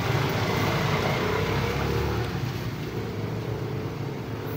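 Pot of jackfruit-in-coconut-milk stew boiling hard under its lid: a steady low rumble with bubbling hiss, easing slightly in the second half.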